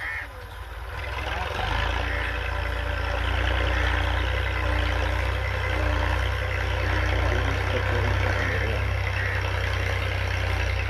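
Farm tractor's diesel engine running steadily as it pulls a cultivator through the soil, growing louder about a second and a half in and then holding a steady drone.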